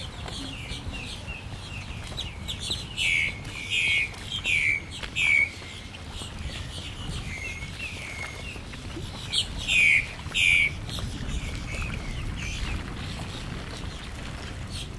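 Birds calling: loud, downward-slurred calls come in a quick run of four about three seconds in and two more near ten seconds, with softer chirps between, over a low steady rumble.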